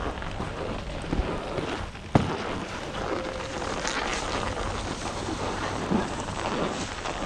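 Skis sliding and scraping over groomed snow while wind rushes across the microphone, with one sharp knock about two seconds in.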